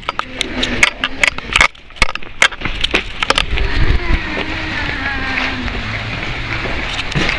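Rapid sharp knocks and thumps of handling noise from a handheld camera being carried along at a hurry, with a short lull about two seconds in. After that come indistinct voices over a steady outdoor noise.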